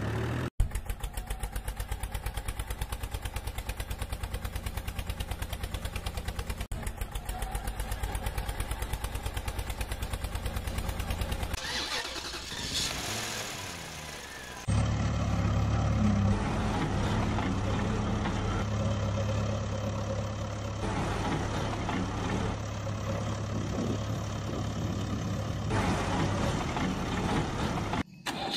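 A vehicle engine idling with a rapid, even putter. About twelve seconds in the pitch glides briefly, and about fifteen seconds in the sound cuts abruptly to a deeper engine running steadily.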